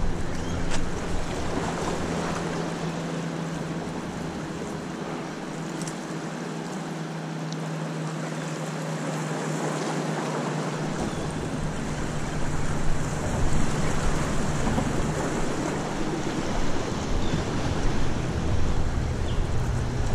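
Wind buffeting the microphone over waves washing against jetty rocks. The low rumble of the wind drops away for a few seconds midway and comes back strongly about eleven seconds in.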